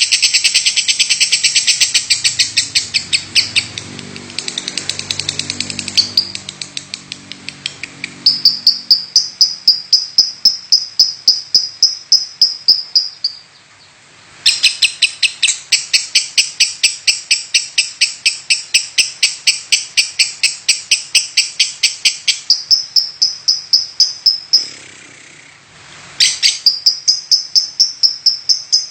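A lovebird gives long runs of rapid, evenly repeated sharp chirps, several a second. It switches between harsh, wide chirping and thinner, higher pulsed notes, and breaks off briefly twice, about halfway and near the end. This is the call style the hobbyists' title calls 'batuk' (coughing).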